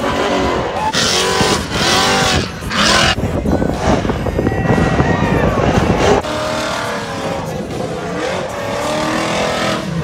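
Off-road race truck engine revving hard, its pitch rising and falling as the truck runs over the dirt jumps of a motocross track, with loud bursts of noise in the first few seconds. The sound drops a little in level about six seconds in.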